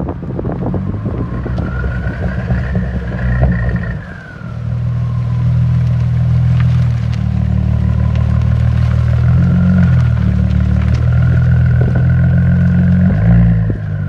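Straight-piped Audi A4 exhaust recorded at the tailpipe on a run down the road: a loud, low engine drone that dips briefly about four seconds in and then builds again, with a faint higher whine rising and falling above it. Wind buffets the microphone at the start.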